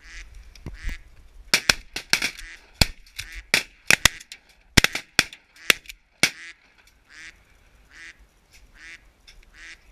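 Duck quacking: a quick, irregular run of short, sharp quacks for the first six seconds or so, then softer quacks at a steady, even spacing.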